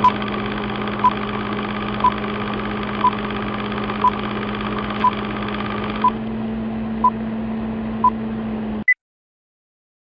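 Film-leader countdown sound effect: a steady film-projector whirr and hum, with a short beep once a second, nine in all. A single higher beep comes just before nine seconds in, and then the sound cuts off.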